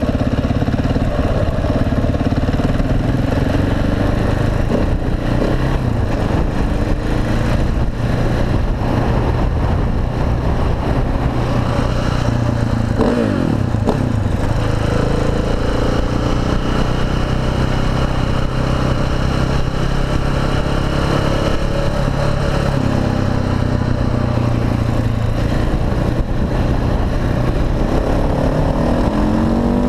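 KTM SMC R supermoto's single-cylinder engine running under way, holding steady revs for stretches, with a quick sweep in pitch around the middle and revs rising near the end as it accelerates.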